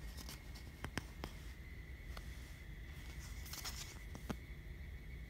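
Paper pages of a picture book being handled and turned: a few light clicks and taps, and a short paper rustle a little past three seconds in, over a faint steady high hum.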